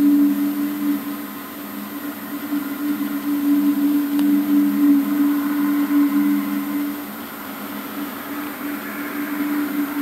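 Low, steady two-note drone that swells and fades slightly, with a fainter higher whine joining in during the second half. It is one of the unexplained 'strange sounds' heard in the sky, which the filmer says comes back every ten minutes to half an hour.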